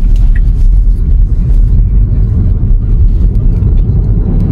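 Steady low road and tyre rumble inside the cabin of a Tesla electric car driving on a city road, with no engine note. A single turn-signal tick sounds just after the start, then stops.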